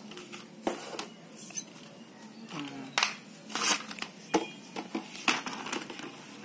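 Sharp clicks and knocks of hard plastic and metal, a string of separate strikes, as a flat mop's handle and plastic mop head are handled and fitted together.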